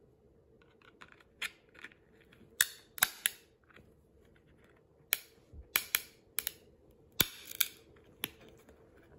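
Hard plastic of a CGC graded-card slab being pried apart with a flathead screwdriver: a run of irregular sharp clicks and snaps, the loudest through the middle.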